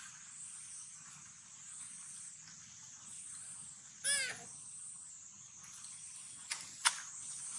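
Insects droning steadily in a high, gently pulsing buzz. About four seconds in, a baby monkey gives one short, high squeal, and two sharp clicks follow near the end.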